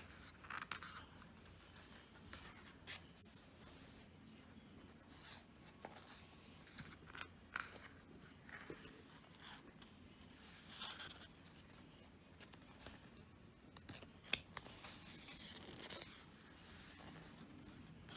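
Faint paper rustling and light handling clicks as the pages of a photobook are turned, with one sharper click about fourteen seconds in.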